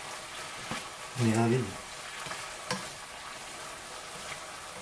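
Ground beef sizzling in a hot frying pan as it is stirred with a silicone spatula, with a couple of light taps. A short low voice sounds briefly about a second in.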